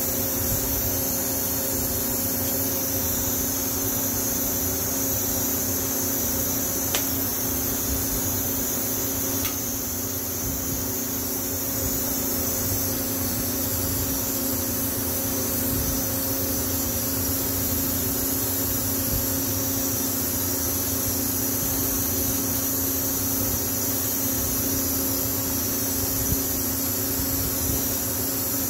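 Steady hum with a high hiss from a Walter Surfox 305 electrochemical weld-cleaning unit running while its wand works electrolyte over stainless-steel welds. Two faint clicks come about a third of the way through.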